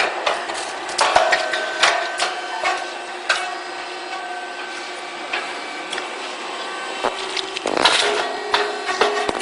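Puffed corn cake machine running, with irregular mechanical clicks and knocks over a steady hum, and a louder short rush of noise about eight seconds in.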